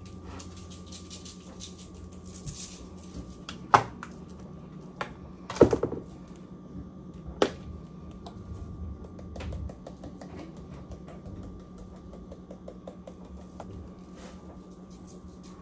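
Spice jars being handled while seasoning salmon: a few sharp clicks and clacks of the jars and their plastic caps, loudest about 4 and 6 seconds in, then a quick run of light ticks as seasoning is shaken out of a jar. A steady appliance hum runs underneath.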